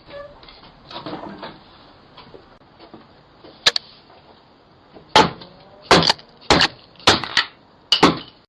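Hard blows striking a Ring doorbell camera, picked up by the doorbell's own microphone: one sharp knock, then five heavy knocks in quick succession about a second and a half later, roughly one every 0.7 s.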